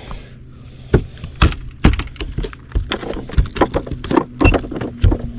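Irregular knocks, clicks and rattles, several a second, of tackle and a caught bass being handled in a fishing boat, over a steady low hum.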